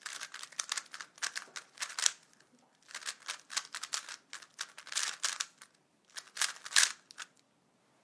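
A 3x3 Rubik's Cube being turned at speed by hand, the plastic layers clacking in rapid runs of clicks with short pauses between. The clicking stops about seven seconds in, as the solve is finished.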